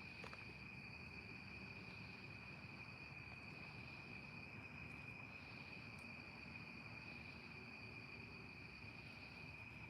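Crickets trilling faintly and steadily, one unbroken high-pitched note over a low background hiss.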